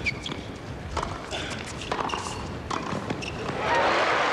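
Tennis balls struck by rackets in a baseline rally, a sharp hit about once a second. About three and a half seconds in, crowd applause swells up as the point ends.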